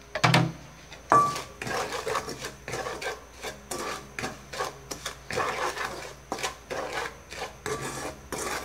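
Wooden spatula stirring and scraping brown sugar in oil around a nonstick wok, in quick repeated rasping strokes, about two or three a second, with a knock on the pan just after the start. The sugar is melting in the hot oil on its way to caramel.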